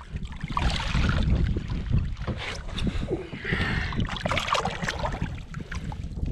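Wind buffeting the microphone, with scattered short knocks and handling noises on a fishing boat as a large redfish is carried to the side for release.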